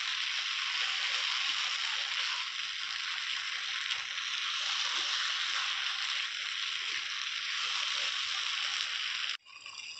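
Shredded-chicken filling sizzling in a nonstick frying pan while a silicone spatula stirs it, its leftover milky liquid being cooked down. It is a steady sizzle that cuts off suddenly near the end.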